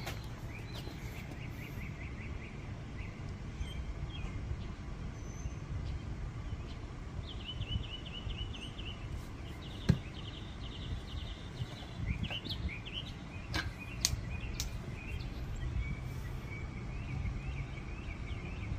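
Outdoor ambience: a steady low background rumble with small birds chirping in short rapid trills now and then. A few sharp clicks stand out, the loudest about ten seconds in.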